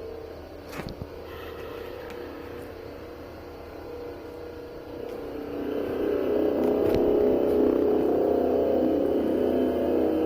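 Loud droning hum of several steady tones sounding together, the kind of sound posted as 'strange trumpet sounds in the sky'. It swells louder about six seconds in and holds.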